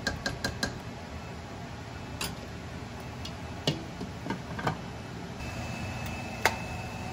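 A kitchen utensil knocking against a nonstick cooking pot as the dish is stirred: a quick run of about six light taps at the start, then scattered single knocks, over a steady low hum.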